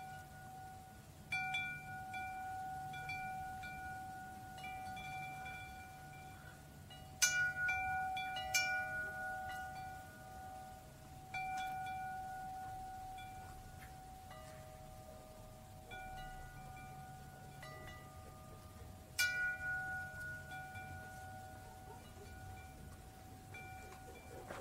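Metal tube wind chime swaying, its clapper striking the tubes every few seconds so that several clear tones ring out and overlap in long, slowly fading notes. A few strikes are sharper and louder than the rest, about a third of the way in and again past the three-quarter mark.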